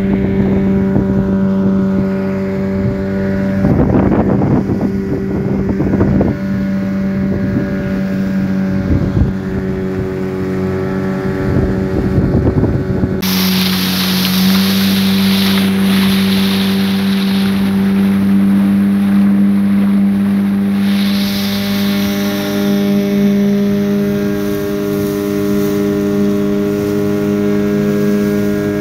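Fishing boat's motor running steadily at cruising speed, a constant hum, with wind on the microphone and water rushing past the hull. About halfway through, a louder hiss of spray and wake comes in and stays.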